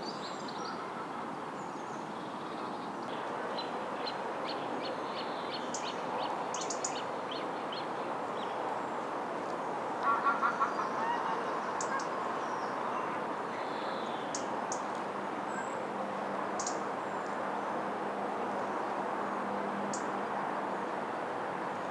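Lakeside birdsong: small birds chirping and trilling over a steady background noise, with a short run of loud waterfowl calls about ten seconds in.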